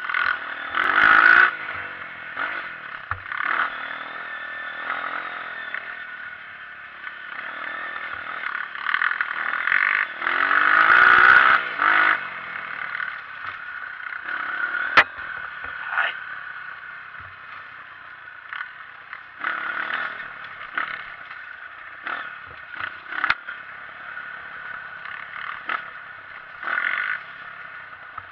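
Honda CRF230 trail bike's single-cylinder four-stroke engine running along a dirt trail, revving up hard about a second in and again near the middle. Rattles, scrapes and a few sharp knocks come from the bike riding over rough ground.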